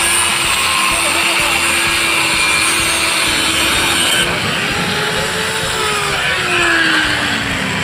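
Electric angle grinder grinding metal, then lifted off about four seconds in, its motor winding down with a falling whine.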